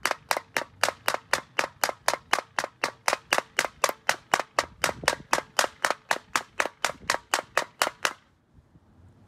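A dusty rectangular engine air filter, metal mesh over its face, knocked again and again flat onto a concrete floor to shake the dust out of it: rapid, steady knocks, about four a second, stopping near the end.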